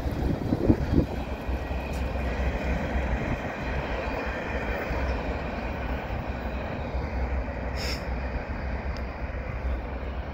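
Short freight train rolling along the rails with a steady rumble and wheel noise, a few sharp clanks in the first second.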